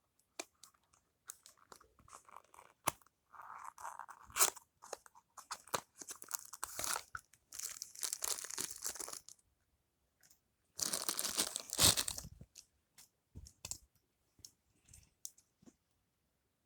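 Packaging of a die-cast toy car being opened and handled by hand: scattered clicks and taps, with two longer spells of rustling and scraping, the second one the loudest.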